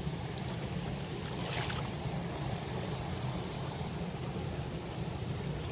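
Shallow river water running over rocks, a steady rushing, with a brief splash about a second and a half in.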